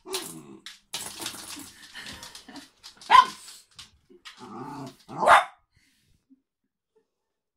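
Small dog growling and barking in excited play, with two loud, sharp barks about three seconds in and again just after five seconds.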